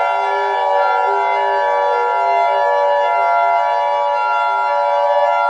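Electronic emergency-alert siren tone: several steady pitches sounding together as one harsh chord, held level without rising or falling.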